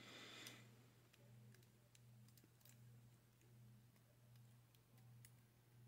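Very faint, scattered ticks of a lock pick working the pins of a brass lock cylinder, over a steady low hum.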